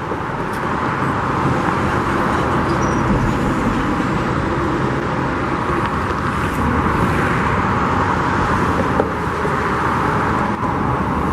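Steady road traffic noise from passing cars, an even, continuous hiss and hum with no distinct events.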